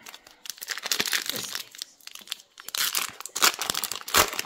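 Foil wrapper of a hockey card pack crinkling and tearing as it is pulled open by hand, in irregular bursts of crackle, the loudest a little after four seconds in.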